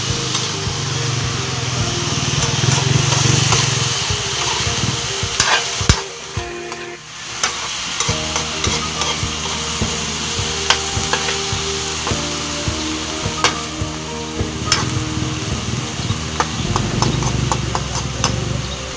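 Chopped banana heart stir-frying in a wok on a portable gas stove: a steady sizzle with a metal spatula scraping and clinking against the pan, dropping off briefly about six seconds in.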